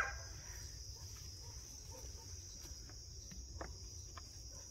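Night insect chorus: crickets making a steady, high-pitched drone, with a few faint scattered ticks.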